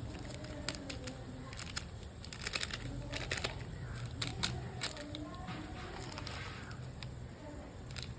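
Short clicks and crinkles of plastic packets of herbal powder being handled and opened, with a faint voice in the background.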